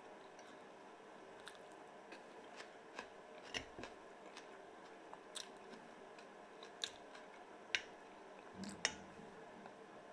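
Metal fork clicking and scraping against a plate as pieces of herring are picked up, with soft chewing between. Several sharp clicks stand out, the loudest in the second half.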